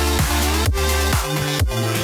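Electronic dance music with a steady kick drum about twice a second, held bass notes and synth chords.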